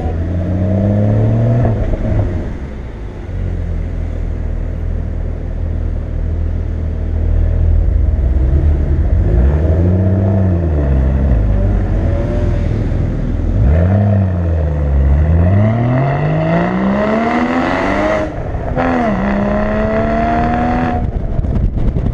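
Porsche 981 Boxster Spyder's 3.8-litre flat-six engine revving and accelerating. After a couple of shorter rises and falls, it snarls through a long climbing pull from about two-thirds of the way in; the pitch drops sharply, as at an upshift, then climbs again, and drops once more near the end.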